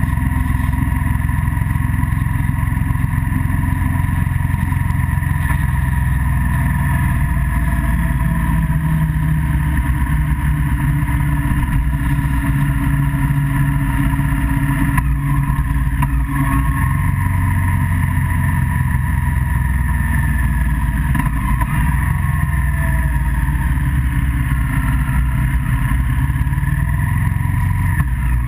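Steady running noise of a moving road vehicle: a continuous low rumble with a held engine hum, its pitch drifting a little and falling once about two-thirds of the way through.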